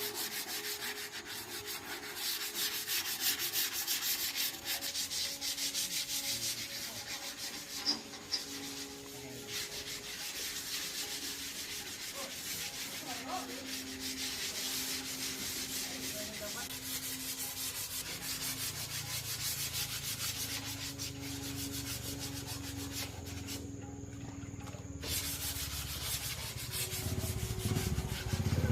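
Sanding: a steady scratchy rubbing that breaks off briefly about four-fifths of the way through, then resumes.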